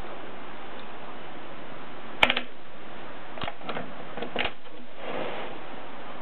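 Mignon index typewriter's mechanism clicking: one sharp clack about two seconds in, then four lighter clicks and a short rustle, over a steady hiss.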